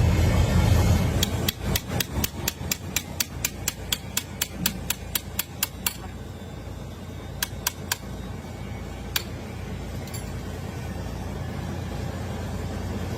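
Hammer striking metal in a quick, even series of about four blows a second that grow fainter, followed by a few scattered taps. A low steady rumble runs before the strikes and cuts off about a second in.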